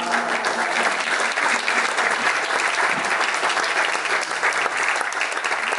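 Theatre audience applauding: many hands clapping steadily, with no music.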